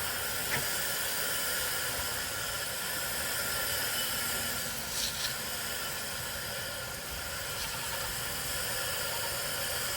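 Garden hose spray nozzle on its shower setting giving a steady hiss as water sprays onto a heat pump's condenser coil fins.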